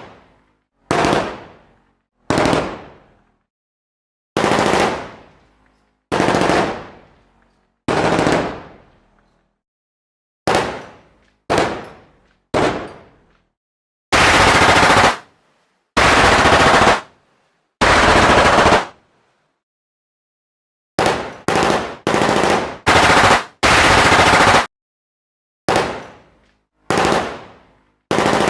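Machine gun firing a series of short bursts, each about a second long, with silence between. Some bursts ring out and fade, while others stop abruptly.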